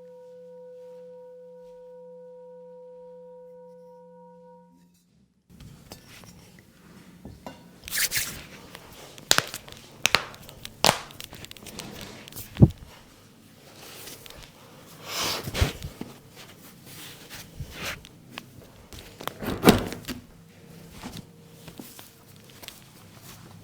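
A steady ringing tone, like a tuning fork or singing bowl, holds for about five seconds and cuts off. After a short gap come irregular hand slaps, taps and rubbing of a head massage, with several sharp loud strikes.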